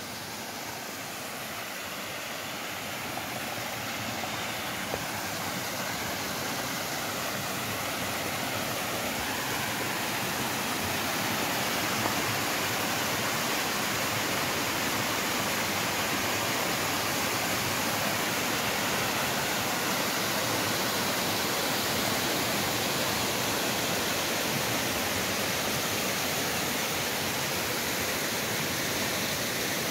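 Steady rushing water of a waterfall, growing louder over the first ten seconds or so and then holding even.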